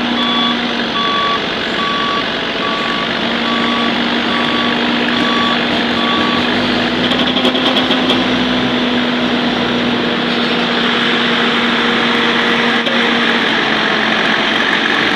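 Backup alarm on heavy road equipment beeping evenly, a little more than once a second, then stopping about six and a half seconds in. Heavy engines run steadily underneath throughout.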